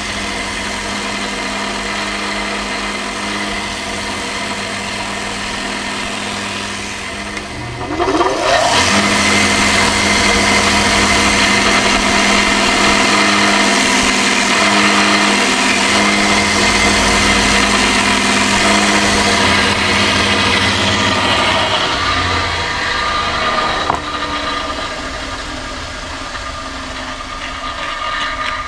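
Electric power sanding tool running while sanding glued leather. About eight seconds in its pitch climbs and it gets louder, then holds steady and drops back a little near the end.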